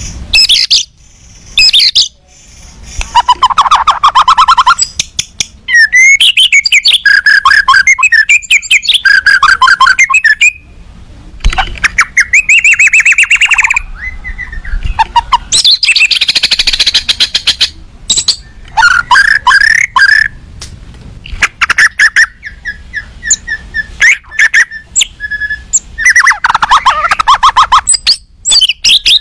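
White-rumped shama (murai batu) singing hard in an agitated state. It gives loud phrases of rapid rattling trills and whistled notes, broken by short pauses. This is the kind of song used as a lure to provoke other shamas into answering.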